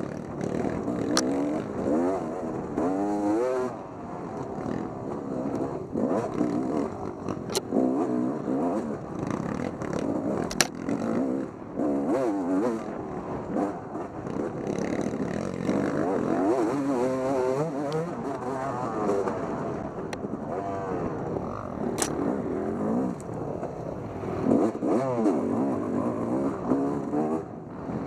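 Off-road racing engine revving up and down over and over as it is ridden hard, with a few sharp clicks and knocks.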